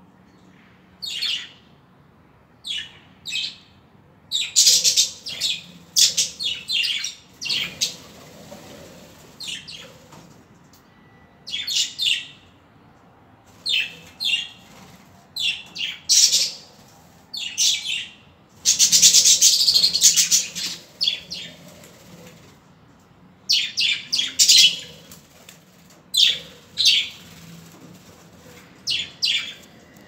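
Budgerigars chirping and chattering: short, sharp, high calls in quick runs through the whole stretch, with a longer, denser run of chatter about two-thirds of the way through.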